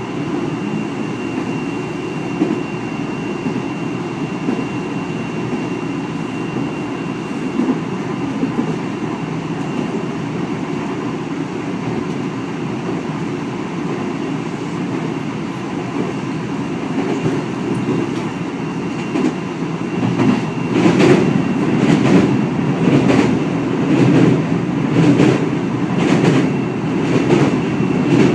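Train running at speed, heard from inside the carriage: a steady rumble of wheels on track. About two-thirds of the way through it grows louder, with rhythmic clacking of the wheels about once a second, as the train goes onto a steel truss bridge over a river.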